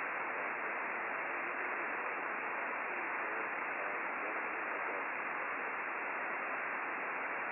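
Steady single-sideband receiver hiss from an Icom IC-9700 tuned to the RS-44 satellite's downlink between contacts. Faint wavering tones from weak signals come and go under the static.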